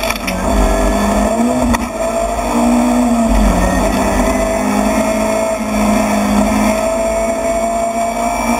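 Rally car engine running hard, heard from inside the stripped cockpit. Its pitch falls and climbs back several times over the stretch, with two sharp clicks in the first two seconds.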